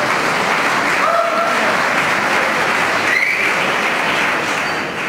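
Audience applauding in a large hall, the clapping thinning out near the end.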